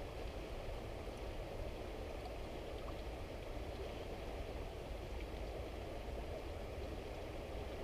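Steady rush of river water flowing, with a low rumble beneath it.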